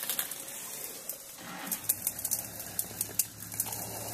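Safari vehicle engine idling, a steady low hum that comes in about halfway through, over scattered crackles and clicks.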